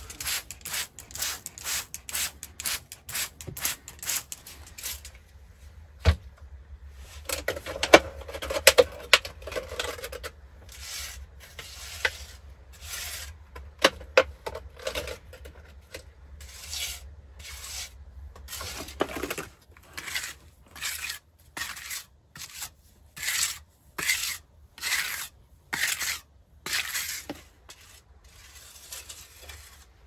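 Hand trigger spray bottle squirting water in quick repeated pumps onto a brick stove, then a wet mix being stirred in a jar and brushed onto the stove's face in steady, regular rubbing strokes, a little over one a second near the end.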